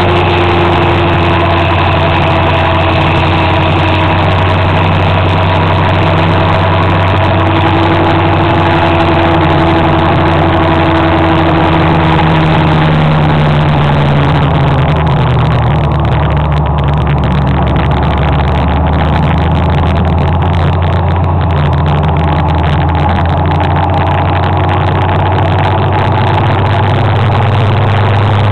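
Motor scooter's engine running steadily while riding, its pitch shifting gently and easing down about halfway through.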